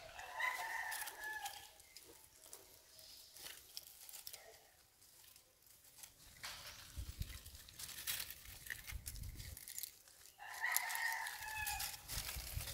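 A rooster crowing twice, each crow a drawn-out call of about a second and a half, one at the start and one about ten seconds later, with light crackling and rustling in between.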